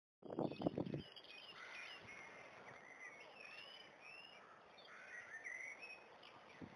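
Several small birds singing and chirping over a faint outdoor hiss: a mix of short rising and falling notes. A few dull low thumps come in the first second, just as the sound starts.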